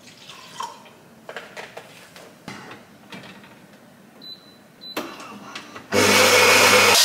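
Coffee machine: a few light clicks and knocks as it is handled and set going, a short high tone, then about six seconds in it starts up with a loud, steady mechanical whir over a low hum.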